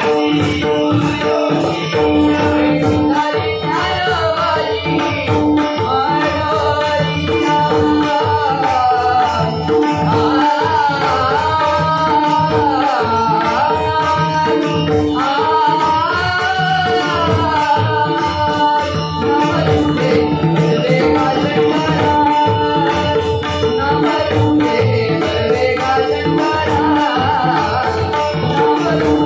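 Live Marathi bhajan: a male lead singer sings the abhang over a steady drone. Pakhawaj and tabla drums keep the rhythm, with jhanj hand cymbals and a tambourine jingling along.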